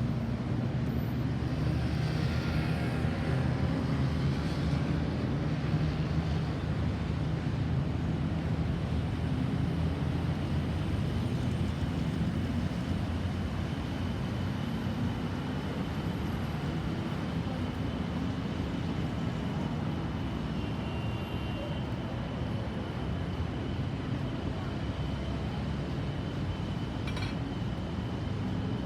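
Steady road-traffic noise: vehicle engines running with a low rumble and road hiss, without a clear siren.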